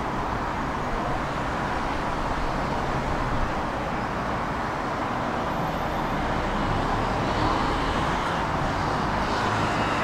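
Steady city road traffic, a continuous hum of passing cars, getting slightly louder in the last few seconds.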